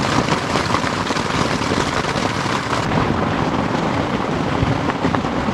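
Heavy rain falling steadily on a tent.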